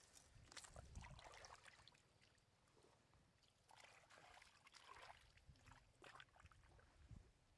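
Faint splashing and squelching as hands work through shallow muddy water and mud, in two short stretches, one about a second in and one about four seconds in.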